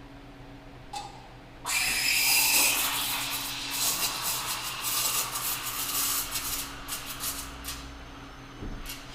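Espresso machine steam wand opened with a sudden loud hiss, steaming milk for cappuccino. The hiss wavers and grows gradually fainter over about six seconds, with a click just before it starts.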